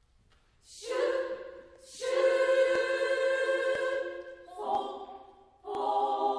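Women's three-part choir singing held chords in short phrases, first coming in just under a second in, with brief breaks between the phrases.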